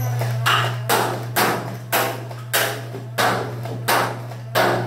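Nerf Elite HyperFire, a battery-powered flywheel dart blaster, firing foam darts one after another: about eight sharp shots, a little over one a second, over a steady low hum.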